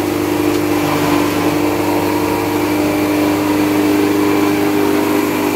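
Small stationary engine driving a forage chopper, running steadily at a constant speed.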